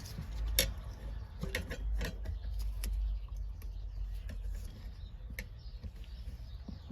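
Small irregular clicks and taps of a wire stripper/crimping tool and wires being handled while black wires are joined in a butt splice connector, over a low handling rumble.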